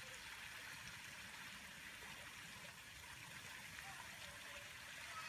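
Faint, steady rushing hiss of lakeside outdoor ambience, even throughout, with no distinct event.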